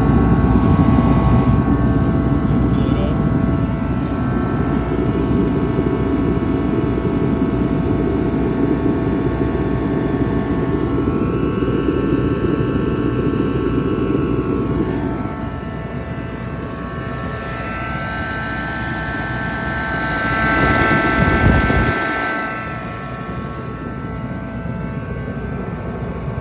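Craftsman CMXEHA080FAK kerosene/diesel forced-air heater running: a steady fan and burner drone with a whine of steady tones over it. It eases about fifteen seconds in, then swells briefly and drops back near the end.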